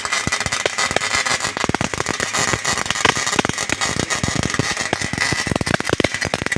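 MIG welding arc crackling: a dense, irregular sputter of sharp crackles that runs on without a break.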